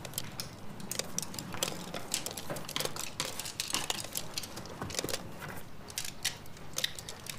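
Objects being handled and rummaged through: irregular small clicks, taps and rustles, several a second, over a faint steady low hum.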